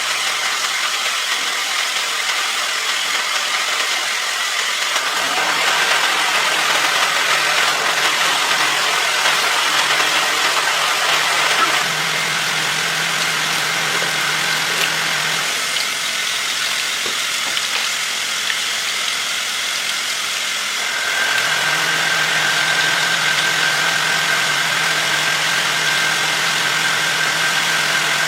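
Car engine running steadily at idle, with a constant hiss and a faint steady hum that drop in and out at a few abrupt changes.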